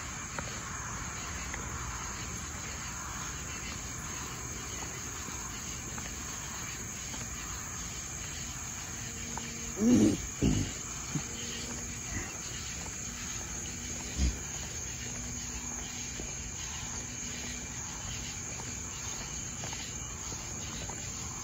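Crickets chirping steadily in a high, continuous trill. A few short, louder low sounds come about ten to fourteen seconds in.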